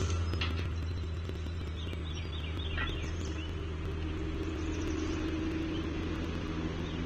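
Steady low mechanical hum with a few fainter higher tones, like distant industrial machinery or traffic. About two seconds in, a bird gives a quick run of short, high chirping notes.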